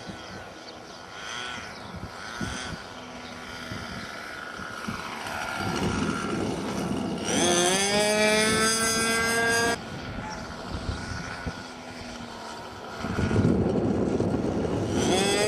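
Radio-controlled model airplane's engine and propeller flying past, its pitch climbing as it powers up. It is loud for a few seconds about halfway through, cuts off suddenly, and comes back loud near the end, with wind rumble on the microphone underneath.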